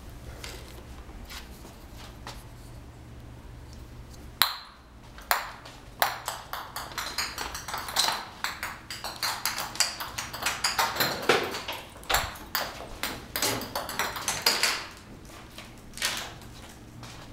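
Dented ping pong ball clicking and bouncing on a hardwood floor as a cat bats it around: one sharp hit about four seconds in, then a long run of quick clicks and taps, and a last knock near the end.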